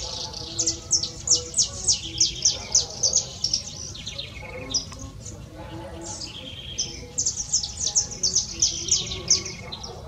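A small finch singing: two runs of rapid, high, sharp notes, the first over roughly the first three seconds and the second from about seven seconds to nine and a half, with a few scattered notes between them. A steady low rumble runs underneath.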